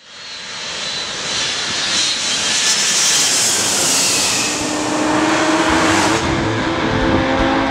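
Jet airliner flying low overhead: its roar swells from the start, is loudest around the middle and cuts off sharply about six seconds in. Music with steady tones and a beat comes in over the second half.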